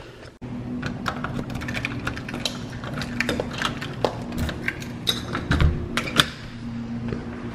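Key working a door's deadbolt lock, a run of sharp metallic clicks and rattles, then the doorknob being handled, with a couple of dull thumps around the middle. A steady low hum runs underneath.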